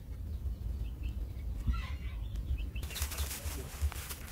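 Faint bird chirps over a steady low rumble. From about three seconds in comes a quick run of crackling rustles.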